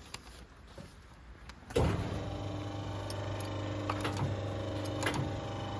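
Air spring crimping machine's motor switching on about two seconds in and then running with a steady hum, a few faint ticks over it.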